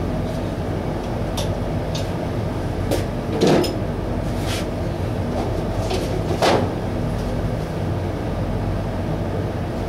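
Handling a plastic mixing cup and tools on a workbench: a handful of short knocks and taps, the two loudest about three and a half and six and a half seconds in, over a steady low hum.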